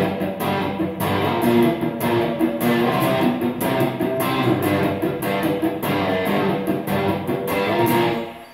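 Electric guitar strumming power chords in a fast, even rhythm, with the unplayed strings muted by the fretting hand and the chord shape moved to several positions. The last chord dies away near the end.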